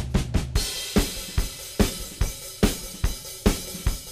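Background music with a driving drum-kit beat. About half a second in, the full kit comes in with cymbals and keeps a steady rhythm.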